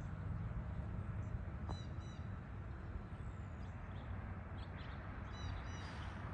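Birds calling over a steady low rumble: a pair of short, high calls about two seconds in, another pair near the end, and a few faint chirps between.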